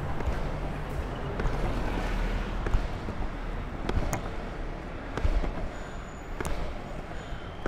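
Longboard wheels rolling on asphalt, a steady low rumble, with a few sharp clicks and knocks as the board runs over cracks and the rider kicks to push.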